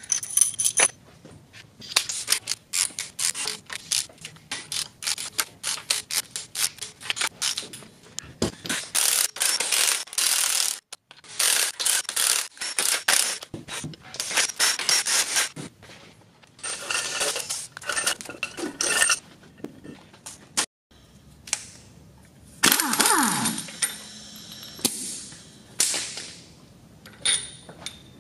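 Hand ratchet clicking in quick runs as the rocker arm bolts are backed out of an LS3 V8's cylinder head, with sharp metal clinks between runs as parts are handled. Near the end there is a brief sound falling in pitch.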